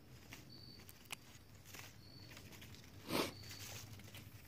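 Faint rustling and scraping of a woody vine being cleaned and worked by hand for cordage, with a few small ticks and one brief louder rustle about three seconds in.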